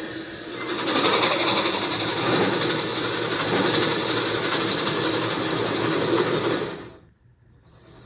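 Steam locomotive running at speed: a dense rumble of wheels and steam that swells about a second in, then falls away almost to silence near the end.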